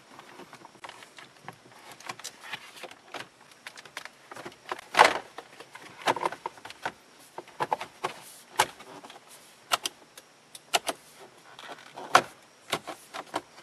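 Hard plastic dash trim panel being handled and pressed back into place: scattered clicks, knocks and light rattles, the loudest a sharp knock about five seconds in.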